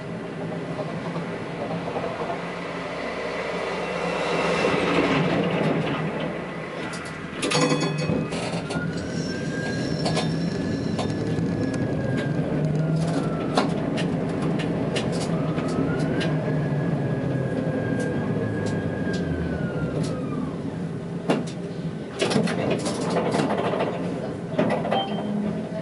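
Tatra T3S tram running, heard from the driver's cab: a steady rumble of wheels on rails, with the traction motors' whine rising, holding and falling twice as the tram speeds up and slows down. There are bursts of sharp clicks and knocks about seven seconds in and again near the end.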